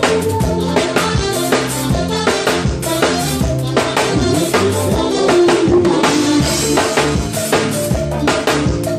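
Live band playing an upbeat song through the PA, a drum kit's kick, snare and rimshots keeping a steady beat over bass and other pitched instruments.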